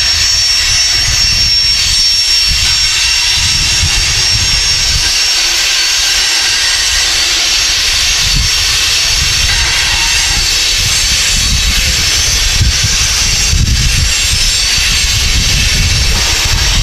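Freight train covered hopper cars rolling slowly past on the rails, a steady hiss with some high steady tones over an uneven low rumble.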